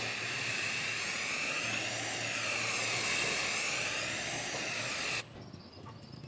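Aerosol spray can spraying a coat onto a wooden axe handle: one long continuous hiss whose tone wavers up and down, cutting off suddenly about five seconds in.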